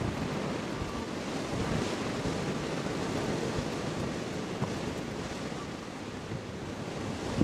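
Wind blowing across the microphone with sea surf behind it: a steady rushing noise.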